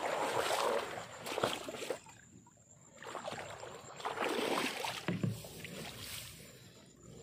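Grass rustling and water sloshing as a hand net is pushed through waterside grass into shallow water. The sound comes in bursts, with a brief lull about two seconds in.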